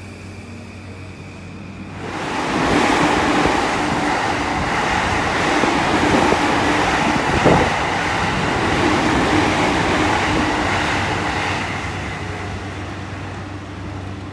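JR E235-1000 series electric train pulling into the platform: wheels rumbling on the rails with a steady motor hum, loud from about two seconds in, with one sharp clunk about halfway, then fading as the train slows to a stop.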